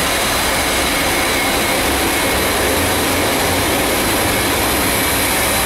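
Natural-gas-fired steam boiler's burner firing: a steady, loud roar of flame and combustion air that does not change.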